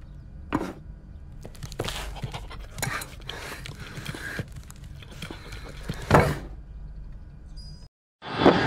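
Cartoon sound effects for an animated dog: a handful of knocks and thumps over a low steady hum, the loudest about six seconds in. After a brief silent gap near the end, louder carousel ride sound with music cuts in.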